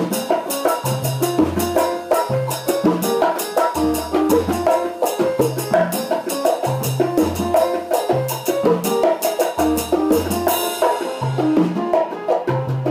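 Drum kit and bongos playing an Afro-Cuban groove with fast, steady cymbal strokes, over salsa music with a repeating low bass line. A cymbal crash rings out near the end.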